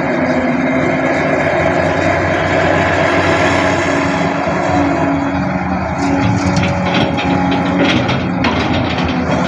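Excavator diesel engine running steadily, its pitch shifting a little as it works, with a run of rattles and clatter in the second half.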